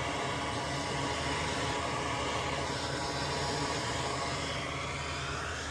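Steady whir of an electric fan or blower, with a low hum under it.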